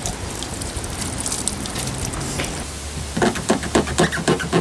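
Cloth rubbing over a car's painted bodywork: a steady swishing hiss, then from about three seconds in a quick run of short wiping strokes, several a second.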